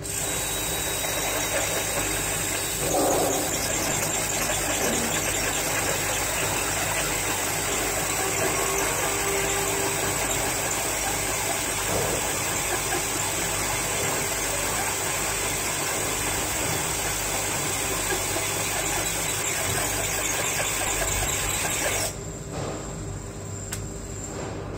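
Cordless drill driving a hole saw into ceramic wall tile: a steady, high-pitched grinding squeal that drops away about 22 seconds in as the bit is pulled out of the cut.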